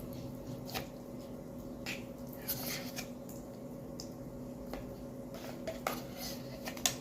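Spoon stirring a thick, wet casserole mixture of chicken, rice and sour cream in a bowl, squishing, with scattered clicks of the spoon against the dish.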